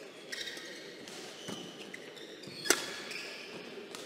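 Badminton rally: rackets striking the shuttlecock in a run of sharp hits, the loudest about two and a half seconds in, with short shoe squeaks on the court floor between them.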